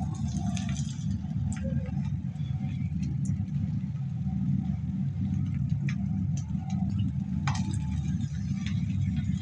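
Potato snacks frying in a pan of hot oil: a faint sizzle with scattered pops and crackles, over a steady low rumble.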